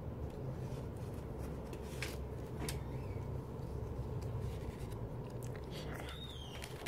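A plastic CD jewel case and its paper inserts being handled: a few sharp plastic clicks, then paper sliding and rustling as a folded leaflet is paged, over a steady low hum.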